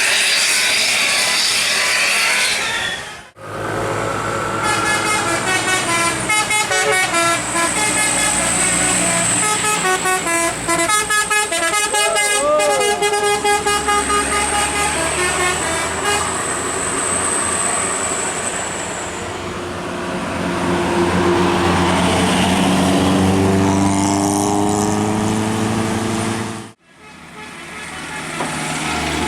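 Bus telolet horn, a multi-tone musical horn, playing a quick stepping melody for several seconds. It is followed by the bus engine running and rising in pitch as it revs up.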